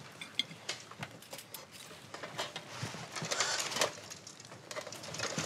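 Scattered light clicks and taps of metal being handled, plate armour and a fork, with a soft rustle about three seconds in.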